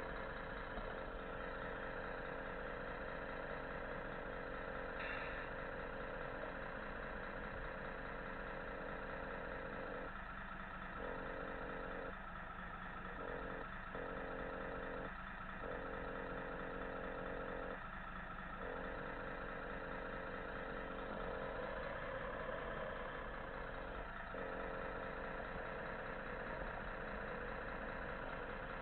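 Steady idling engine drone from an RC scale truck's engine-sound module, holding an even pitch. Parts of the tone briefly drop out a few times midway.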